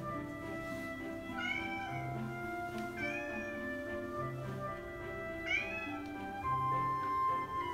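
A domestic cat meowing three times, short calls that rise and fall in pitch, calling anxiously for its owner, which the owner takes for separation anxiety. Background music plays underneath.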